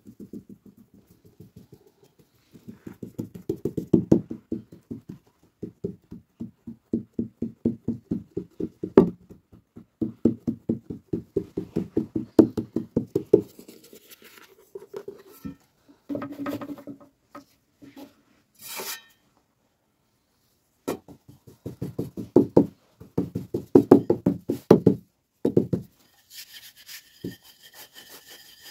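Fingertips rapidly patting a filled dough pastry flat on a floured metal tray: fast, even soft thuds, about seven a second, in two long runs.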